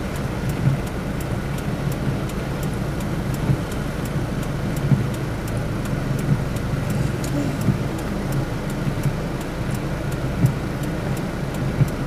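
Steady low rumble of a car's engine and tyres on a wet road, heard from inside the cabin, with scattered short taps.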